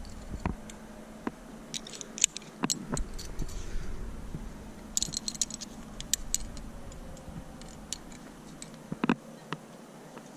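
Climbing gear clicking and jangling: carabiners and quickdraws knocking together as the rope is clipped into a quickdraw. Scattered sharp clicks include a quick run of them around the middle and a louder knock near the end.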